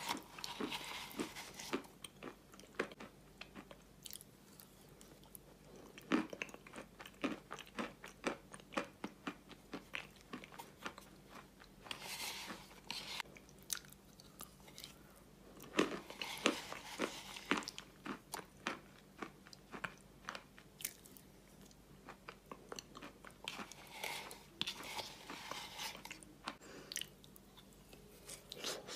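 Close-miked mouth sounds of eating Ural clay paste from a spoon: biting and chewing with many small sharp clicks, coming in several denser bouts.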